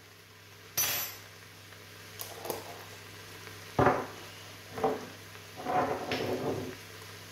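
Scattered knocks and clinks of spice jars and kitchen containers being handled and set down on the worktop: a sharp knock about a second in, lighter ticks, another knock near four seconds and a short run of clattering near the end, over a faint steady hum.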